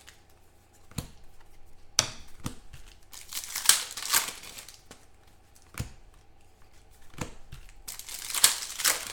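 Trading-card pack wrappers and packaging crinkling and tearing as packs are opened, in three bursts (about two seconds in, around three to four seconds, and near the end), with a few sharp clicks in between.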